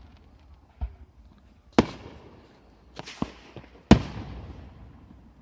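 Fireworks exploding: about five sharp bangs, a dull one about a second in, loud ones about two and four seconds in, and a quick pair just after three seconds. Each bang trails off in a long fading echo.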